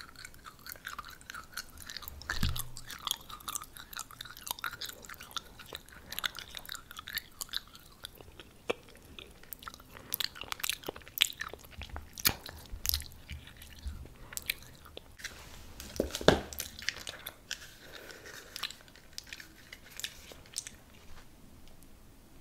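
Close-miked chewing and crunching of food, with sharp bite crackles that come thickest in the second half.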